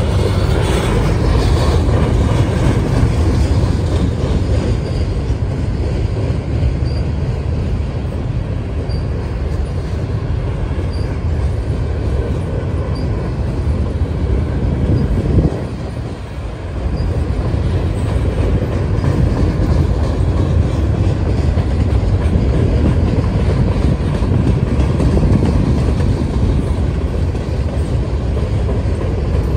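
Freight train's gondola and hopper cars rolling past, a steady rumble of steel wheels on the rails, with a short lull in the noise just past halfway.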